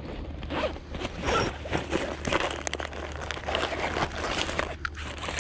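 Fabric backpack being handled and packed by hand: a continuous run of irregular rustling, crinkling and short scrapes as the bag is opened and cloth is stuffed into it.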